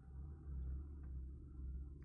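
Faint, steady low rumble and background noise, with no distinct event.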